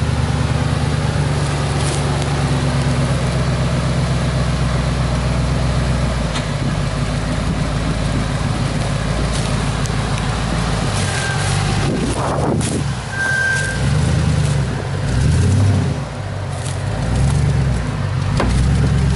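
Dodge Ram 2500 Power Wagon's 5.7-litre HEMI V8 running at low revs as the truck crawls over rough forest ground. In the second half the engine note rises and falls several times as the throttle is worked.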